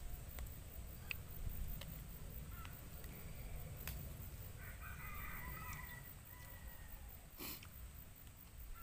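A rooster crows once, faintly, about five seconds in, over a steady low rumble.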